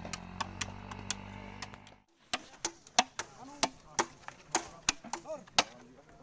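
A rapid run of sharp clicks or taps, about three to four a second. For the first two seconds they sit over a steady low hum, which cuts off abruptly.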